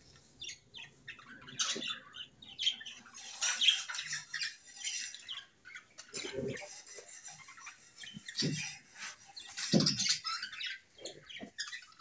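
Budgerigars chirping and chattering in short, scattered calls, with a few brief low thuds in the second half.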